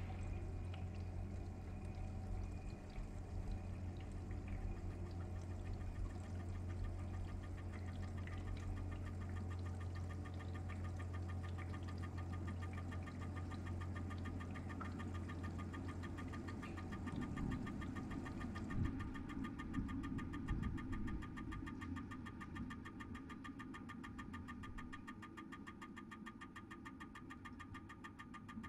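Experimental improvised electroacoustic music. A steady low hum runs under shifting noisy textures. About two-thirds of the way through, a few knocks come in, followed by a faint steady high tone and fast, even ticking, and the whole texture slowly fades toward the end.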